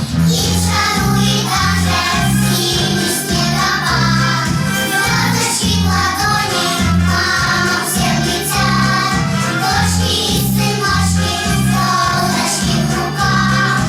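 Children's song playing: a bouncy, steady bass line under a choir of children's voices singing.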